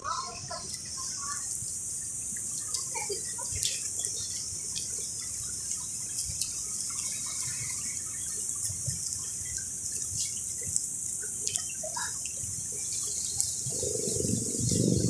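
Steady hiss of a fast-flowing river, with scattered short bird chirps and a few light clicks. A louder low rumble comes in near the end.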